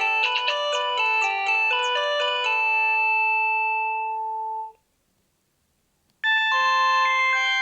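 Panasonic KX-TG8301 cordless phone playing an electronic ringtone melody through its speaker. The melody stops about four and a half seconds in, and after a short silence another ringtone starts.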